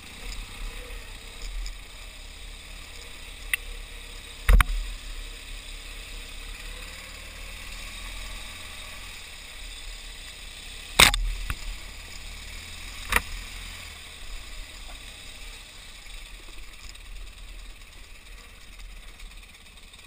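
Dual-sport motorcycle riding over a rough dirt trail: a steady low rumble of engine and riding noise, broken by three sharp knocks as the bike and camera jolt over bumps, the loudest near the middle.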